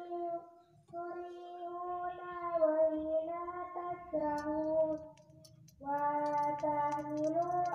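A high voice singing a slow melody in long held notes, breaking off briefly about a second in and again for about a second near five seconds in.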